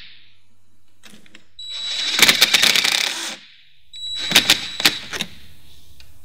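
Cordless drill/driver running in two short bursts, a steady high motor whine over a dense clatter, as it tightens a stainless steel T-bolt hose clamp on a silicone intake coupler. The second burst ends in a few sharp clicks.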